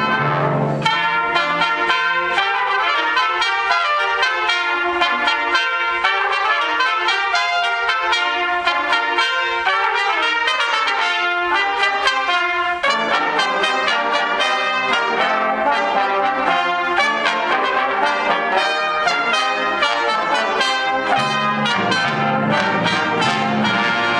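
Brass ensemble of trumpets and trombones playing a piece through many short notes. The low notes drop out about a second in and come back near the end.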